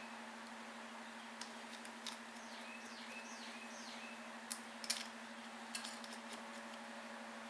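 A bird chirping repeatedly in the background, about once a second, each call a quick downward-sliding note. A few sharp clicks come around the middle as the plastic air cleaner parts are handled on the mower's carburetor, over a steady low hum.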